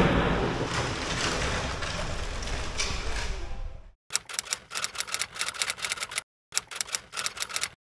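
Steady outdoor noise with wind on the microphone, cut off abruptly about four seconds in. Then two quick, irregular runs of typewriter-style key clicks against dead silence, an edited-in typing sound effect.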